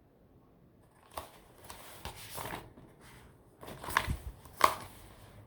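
A few scattered soft knocks and rustles, with two sharper clicks close together about four seconds in.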